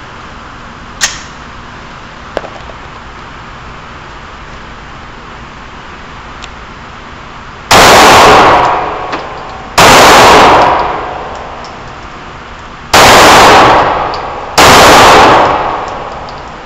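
Four shots from a Glock 17 9mm pistol, spaced unevenly about two to three seconds apart, each so loud that it clips and then rings off over about a second. Two light clicks come several seconds before the first shot.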